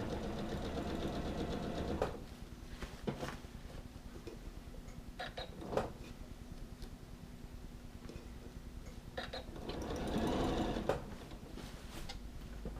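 Janome sewing machine stitching at a steady fast rate, stopping abruptly about two seconds in. Scattered clicks and handling of the fabric follow, with a louder rustling swell near the end.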